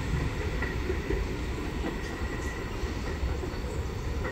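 New York City subway train running on the tracks: a steady rumble of wheels on rail, with a faint high wheel squeal.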